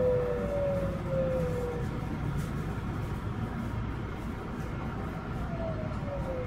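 Tsukuba Express TX-1000 series electric train running and slowing: the traction inverter and motor whine falls in pitch during the first two seconds and again near the end, over a steady rumble of the wheels on the track.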